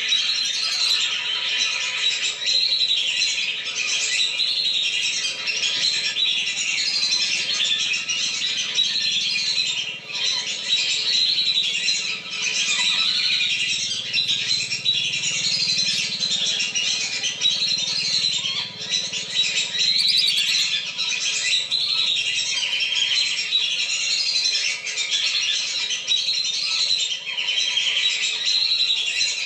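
A flock of whistling ducks (belibis) calling over one another in a dense, unbroken chorus of high whistles and chirps: a lure call for drawing wild whistling ducks down.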